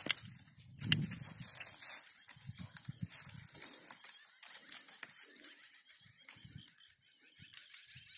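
Hand pruning shears snipping custard apple branches: a few sharp clicks amid rustling of twigs and dry leaves, fainter in the second half.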